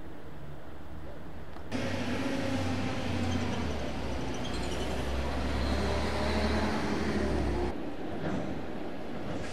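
Faint steady city hum, then from about two seconds in a motor vehicle running close by on the street: a steady low engine drone over traffic noise. It drops away suddenly about eight seconds in.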